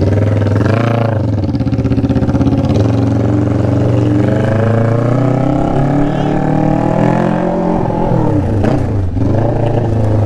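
Kawasaki 400 cc inline-four sport bike with an SC-Project exhaust, idling and being revved: a quick blip about a second in, a longer climb in revs from about three seconds that drops back near eight seconds, and another short blip near nine seconds.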